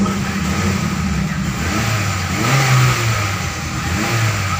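Honda Mobilio's petrol engine running under the hood and briefly revved, its pitch rising about two seconds in and settling back, while an intake-cleaning fluid is fed into the intake manifold.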